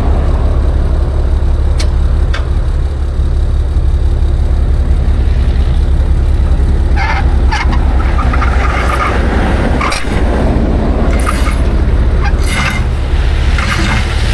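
Tow truck engine running steadily with a low rumble, with short scraping and clinking sounds now and then over it.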